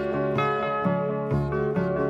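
Calm instrumental music: a melody of notes starting about every half second over sustained low tones.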